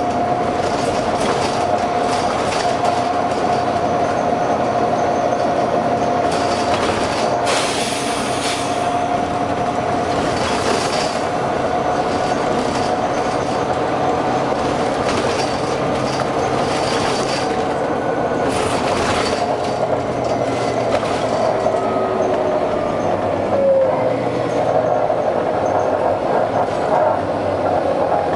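Volvo B9TL double-decker bus running, its engine and driveline noise loud and steady with a whine that drops in pitch about three quarters of the way through. Several short air hisses come through, about four times, around the middle of the stretch.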